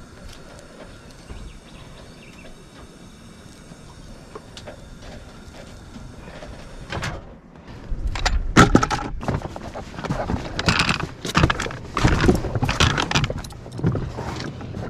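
A low, steady background for about seven seconds. Then a run of loud, irregular thumps, knocks and rustling as a person gets into an inflatable dinghy and handles its aluminium oars and metal carabiner clips.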